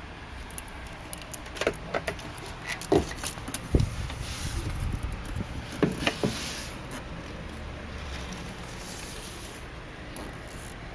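Metal clicks, knocks and light rattling from handling an EISHIN tabletop electric deep fryer, scattered through the first seven seconds, over a steady low background hum.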